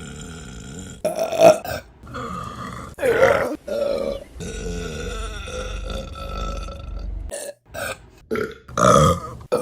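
Women burping: a string of separate loud belches one after another, the loudest about a second and a half in and near the end, with a longer drawn-out burp in the middle.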